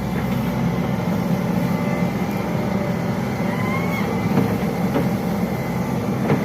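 Diesel engine of a Hitachi Zaxis 110 long-reach excavator running with a steady low drone.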